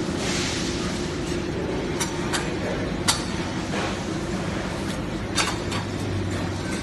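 Beam welding machine running with a steady hum and noise, with a handful of sharp metallic clinks at irregular moments.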